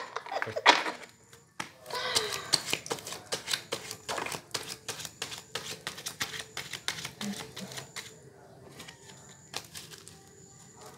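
A deck of playing cards being shuffled by hand: a fast run of crisp card clicks, thinning out near the end.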